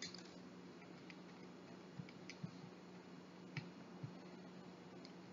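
Near silence with about eight faint, scattered little clicks and taps as small plants and gravel are pressed and settled into a glass terrarium bowl by hand.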